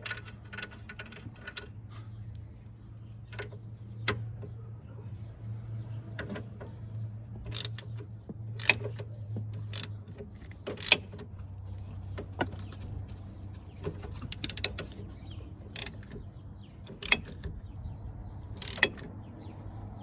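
Hand tools and metal parts clinking and knocking irregularly while a car's front suspension is reassembled, a dozen or so sharper metallic clinks standing out, over a steady low hum.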